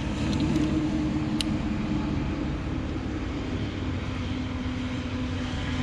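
A steady low mechanical hum with a few faint ticks early on and one sharp click about a second and a half in.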